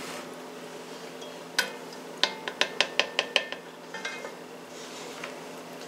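Hard kitchen utensils and cookware clinking: one sharp click, then a quick run of about seven ringing clicks, some six a second, which then stop.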